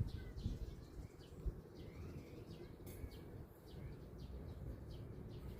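Birds chirping faintly, short chirps repeating every half second or so over a low background rumble.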